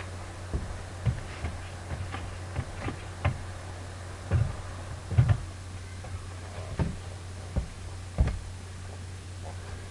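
Scattered light knocks and taps, about one a second at irregular intervals, the loudest just past the middle, over a steady low hum.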